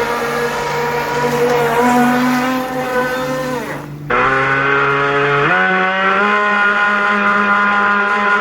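Pro Boat Shockwave 26 RC boat's electric motor and drive whining at speed. The pitch holds steady, falls away about three and a half seconds in, then comes back higher and steps up twice.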